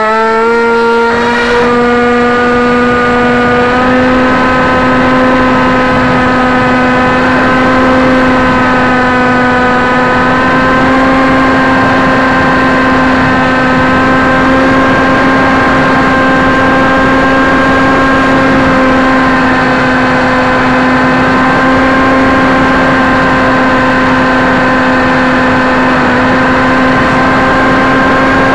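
Hawk Sky RC plane's electric motor and propeller whining at a steady, high pitch under near-constant throttle, heard loud and close from the camera mounted on the plane.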